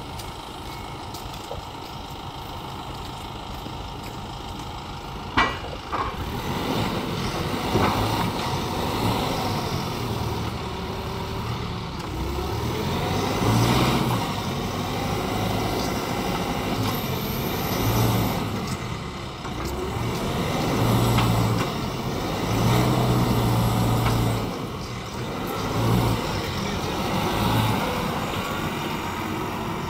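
Engine of a 4-ton diesel forklift with an EPA Tier 4 engine running as it is driven, revving up and falling back again and again. A sharp clunk sounds about five seconds in.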